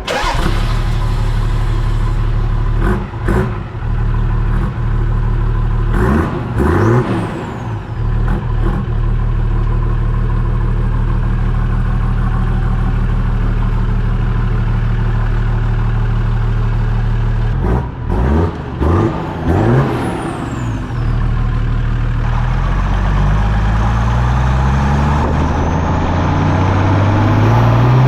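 Toyota Land Cruiser 80 series turbo-diesel engine running through a new custom stainless steel exhaust, blipped up and back down several times. Over the last few seconds the engine note climbs steadily as it accelerates.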